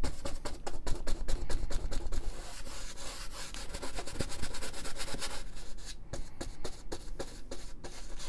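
A bristle brush scrubbing oil paint into a stretched canvas, with rapid back-and-forth strokes that thin out to fewer, separate strokes over the last few seconds.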